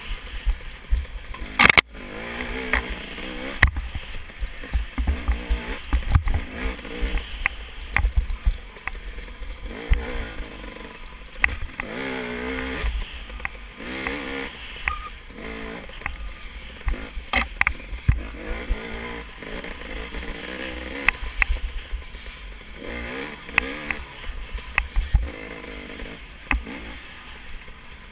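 Off-road dirt bike engine ridden hard along a rough trail, its revs rising and falling again and again as the throttle is worked. Frequent knocks and rattles come from the bike jolting over bumps.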